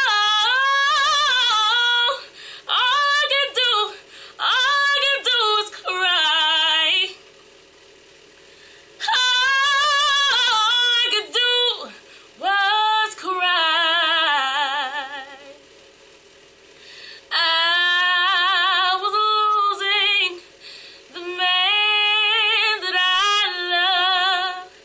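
A woman singing solo and unaccompanied, in a string of phrases with fast vocal runs and held notes with vibrato, separated by short pauses.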